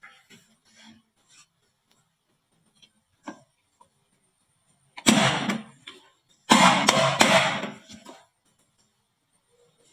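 Marbles running down a wooden marble-run slope: light scattered clicks, then a clattering rush about five seconds in and a louder, longer clatter of several marbles knocking together from about six and a half to eight seconds.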